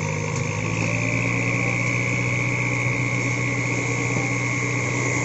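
Light dump truck's diesel engine running steadily as its hydraulic hoist tips the bed to unload sand, with a steady high whine over the engine note.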